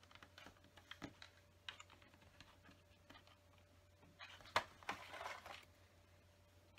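Faint scattered clicks and taps of plastic LEGO bricks being pressed onto a baseplate and picked from the table. A sharper click comes about four and a half seconds in, followed by a brief rustle of pieces.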